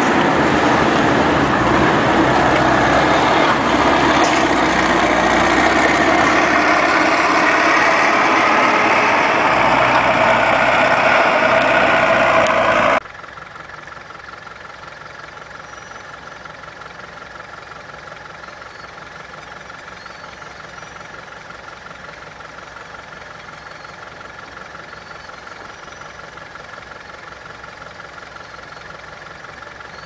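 Tractor engine working hard, towing a loaded silage trailer through deep mud, with a loud, dense noise. About 13 s in this cuts off suddenly to a much quieter, steady engine hum from a New Holland TC57 tracked combine harvester.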